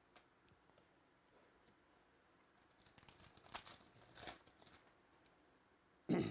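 Foil trading-card pack wrapper being torn open and crinkled by hand, a quick run of crackling rips in the middle. A short thump near the end.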